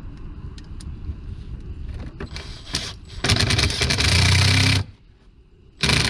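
A power tool running in two bursts: a loud one of about a second and a half, about three seconds in, and a shorter one near the end, each made of rapid repeated strokes. Under them runs a low steady rumble.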